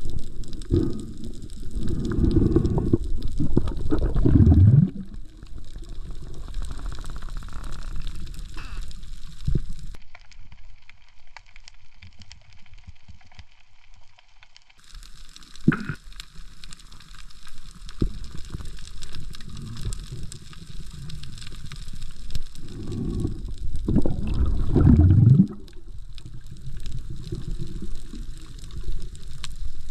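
Muffled underwater water noise picked up through a camera housing, with two loud gurgling surges of a few seconds each, one near the start and one near the end. For a few seconds in the middle it drops to a thinner, quieter hiss.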